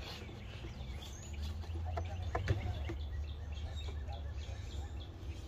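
Steady low rumble of outdoor background noise with faint bird chirps. A few light clicks and rubbing sounds about two seconds in, from a rubber vacuum hose being worked onto the PCV valve by hand.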